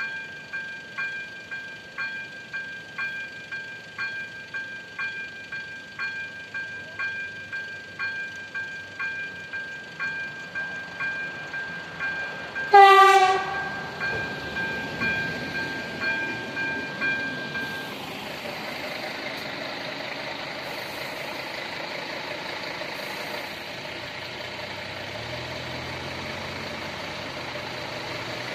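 Level-crossing warning bell dinging steadily, about two strokes a second. About 13 s in the approaching passenger train gives one short horn blast, the loudest sound, falling in pitch. The train then rumbles past, the bell stops about 18 s in, and near the end a car engine runs as traffic moves off over the crossing.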